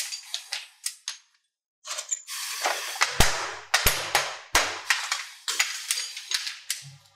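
Rapid, irregular sharp metallic clacks and taps with short ringing as metal motorcycle brake-shoe parts are struck and knocked against a steel workbench and jig, a few hits landing with a heavier thump; the sound drops out completely for about a second near the start.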